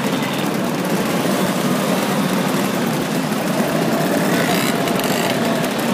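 Many Vespa scooter engines running together as a stream of scooters rides past, a dense, steady buzz of small engines.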